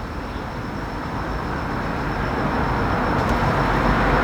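A passing vehicle on the road, its tyre and engine noise growing steadily louder as it approaches.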